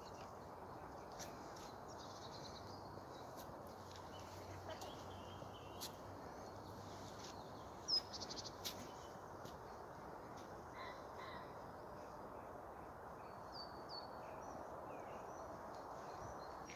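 Faint outdoor ambience: a steady low hiss with a few scattered distant bird calls, short chirps here and there.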